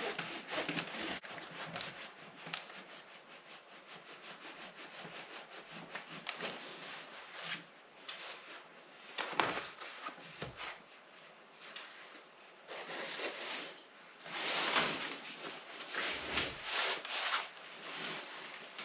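A clothes iron pressed and slid over the fabric of chainsaw protective trousers to iron on a repair patch: cloth rustling and rubbing in irregular bursts, with a few light knocks.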